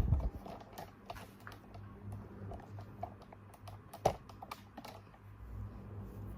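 Scattered light clicks and taps of small objects being handled on a table, with one sharper knock about four seconds in.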